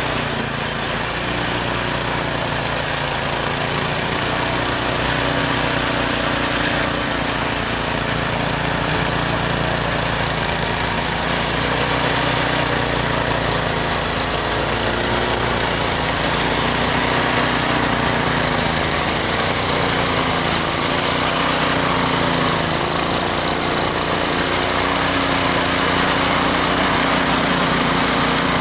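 Snowblower's small engine running steadily, with a wide rushing noise over it.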